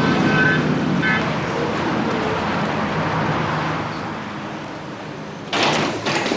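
Steady traffic rumble and hiss from a street. Near the end comes a short clatter of a door being opened.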